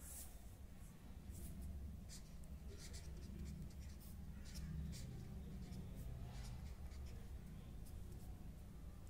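Ballpoint pen writing on a sheet of paper: a string of short, irregular scratchy strokes as words are written out by hand.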